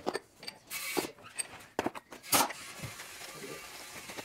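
Small metal engine hardware and its cardboard box being handled: a few sharp clicks and short rustles, the loudest click about two and a half seconds in.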